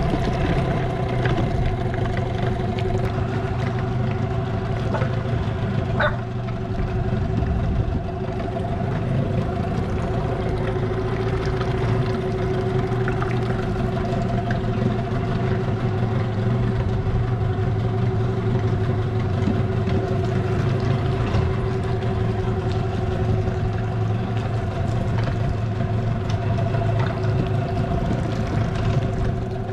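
A boat's engine running steadily at a constant speed, a continuous even hum.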